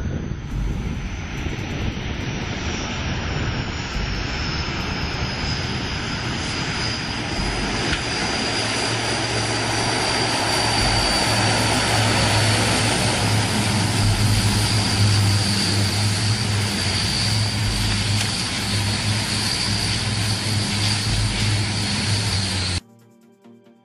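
Aircraft engine running loud and steady, with a high whine that slowly falls in pitch and a low hum under it, cutting off suddenly near the end.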